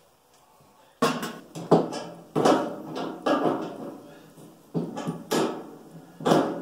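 Galvanized sheet-metal box being handled with a hand tool during assembly: a string of sharp metal knocks and clanks, each ringing briefly, starting about a second in.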